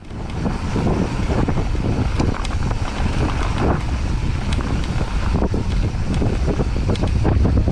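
Wind buffeting an action camera's microphone as a mountain bike rides down a dirt trail, with tyre rumble and frequent irregular clicks and rattles from the bike over rough ground.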